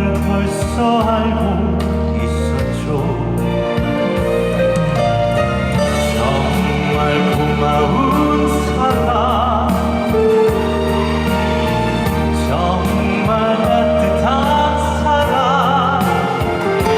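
Live concert music: a singer's voice, held with vibrato, over a band or orchestral backing track.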